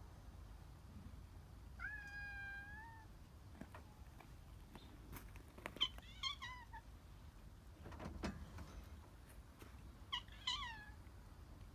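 Cat meowing three times: first one long, evenly held meow, then two shorter meows that fall in pitch. A few faint clicks come in between.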